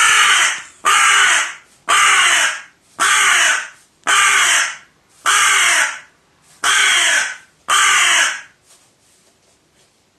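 Pet crow giving eight loud, harsh caws, about one a second, then falling quiet. This is an angry outburst at being shown a wild bird's feather.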